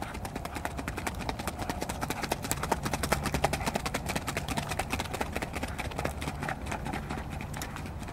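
Hoofbeats of an Icelandic horse moving at a fast, even gait on a sand track, a quick run of clopping footfalls that grows louder and then fades near the end as the horse moves away.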